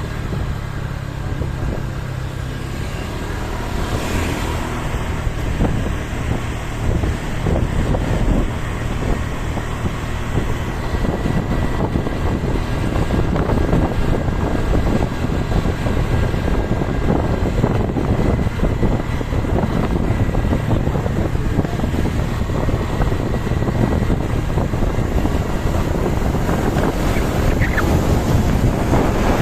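Steady engine and road noise of moving traffic, with wind rushing over the microphone throughout.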